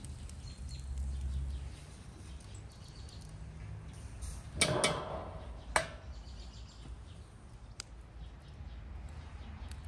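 Metal rotisserie spit scraping as it is lifted off the brick stove, followed about a second later by a sharp metallic clank.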